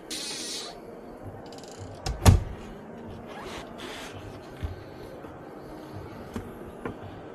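A brief hiss at the start, then one loud sharp knock a little over two seconds in and a few lighter clicks later, over a steady low background hum.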